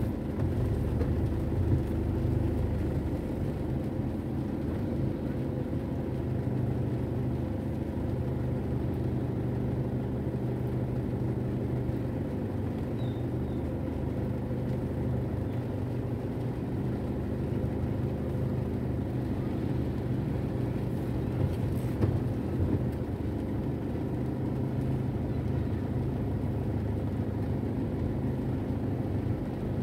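Car engine and road noise heard from inside the cabin while creeping through slow traffic: a steady low hum with little high-pitched content, and one brief tap about 22 seconds in.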